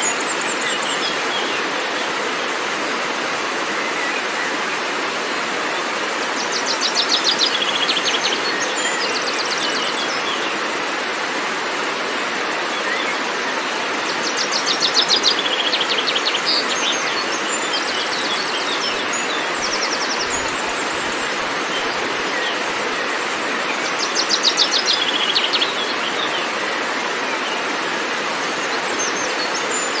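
Waterfall rushing steadily over rocks, with a songbird singing a fast trill that drops in pitch three times, about eight seconds apart, and a few other short chirps.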